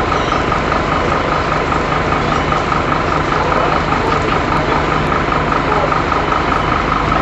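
A fire engine running steadily as it supplies water to the hose lines, with a constant high whine over the engine.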